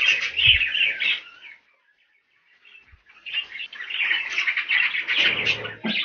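A roomful of budgerigars chirping and chattering continuously. The chatter cuts out for about a second, just under two seconds in, and then resumes.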